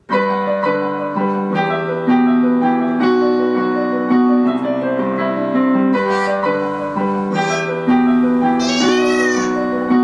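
Digital piano playing a slow melody over held chords. Near the end a short high sound slides up and back down over the music.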